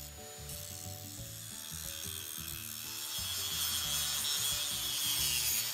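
Angle grinder grinding the rusted steel of an old hammer head, a gritty hiss that grows steadily louder as the disc bites. Background music with low, stepping notes plays along.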